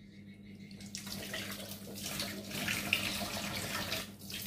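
Tap water running into a kitchen sink, splashing, starting about a second in, with a brief break near the end.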